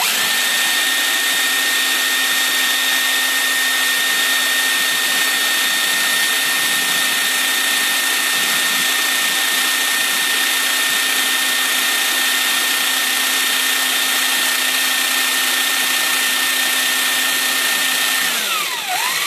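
Electric drill running steadily with a 1/16-inch bit, drilling a hole through a carburetor throttle butterfly to improve idle with a radical cam. Near the end the drill winds down and then starts up again.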